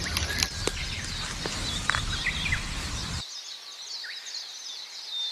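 Forest ambience: birds chirping briefly now and then over a steady high-pitched insect buzz. A low rumble with a few clicks underneath cuts off suddenly about three seconds in.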